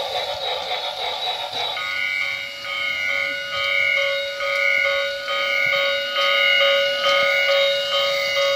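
Battery-powered toy steam train's electronic sound effects: a hiss that gives way about two seconds in to a buzzy synthesized tone pattern pulsing about twice a second, which cuts off near the end.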